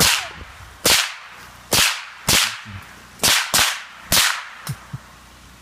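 Seven .22 rimfire gunshots fired in quick succession, a second or less apart, each a sharp crack with a short echo trailing off.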